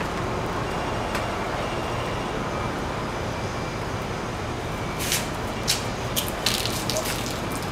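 Steady outdoor background rumble, like traffic or wind on the microphone, with several short, sharp hissing bursts between about five and seven seconds in.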